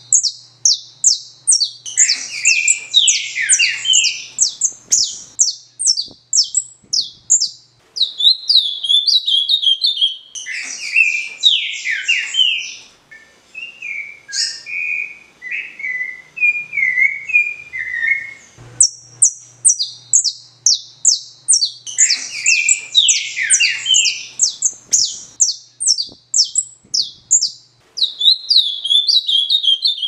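Songbirds singing in a mixed chorus: fast runs of high, sharply falling notes, with a stretch of lower whistled phrases midway before the fast runs come back.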